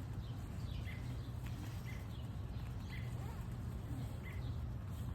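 A bird repeating a short chirp about once a second, over a steady low outdoor rumble.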